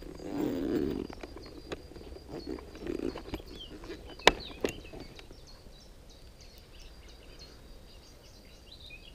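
Rustling and handling of a float tube's fabric side pocket as it is opened, with a few sharp clicks, the loudest about four seconds in. Small birds chirp in quick repeated high notes through the second half.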